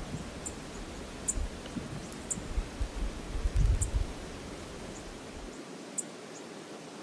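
Steady outdoor hiss of flowing river water, with low rumbling buffets of wind on the microphone that stop about five and a half seconds in. Short high chirps sound about once a second.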